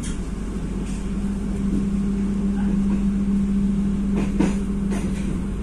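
Passenger train running: a steady drone with a constant low hum, and a few light clicks about four to five seconds in.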